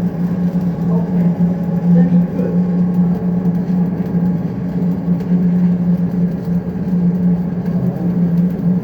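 Steady low mechanical hum over a noisy background, holding one pitch without a break.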